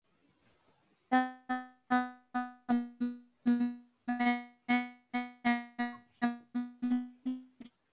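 A piano-like keyboard tone playing one note over and over, about two to three strikes a second, each note dying away quickly; it starts about a second in and stops just before the end.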